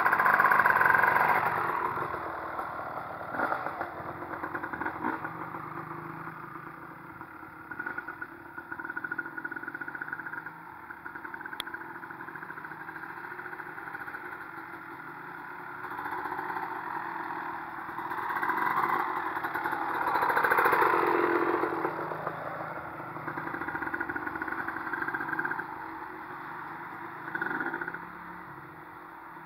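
Honda CR250 two-stroke single-cylinder dirt bike engine running and revving as it rides around, growing louder and fainter with distance; loudest at the start and again about two-thirds of the way in. A small Honda CRF50 four-stroke pit bike runs as well.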